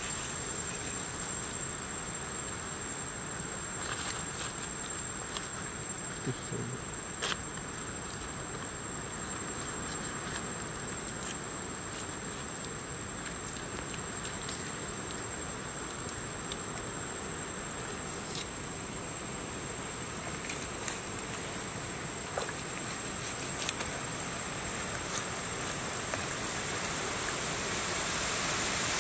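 Insects keep up a steady, high-pitched drone, with a few faint clicks from a knife filleting a large salmon.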